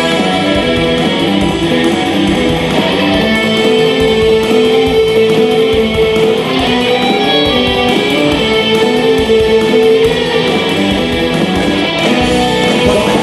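Live band playing an instrumental break: guitar music with strummed chords under a melody of long held notes, without singing.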